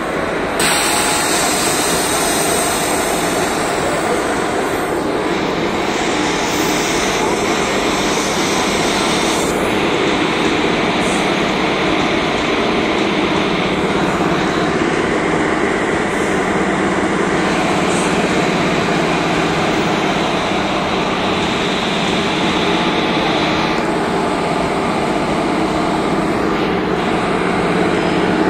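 Stationary locomotive running at the platform: a loud, steady mechanical drone and hiss that does not let up.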